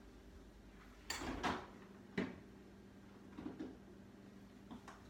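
Quiet kitchen handling sounds as a container of Parmesan cheese is fetched: a short scraping rustle about a second in, a sharp click a little after, then a few soft knocks.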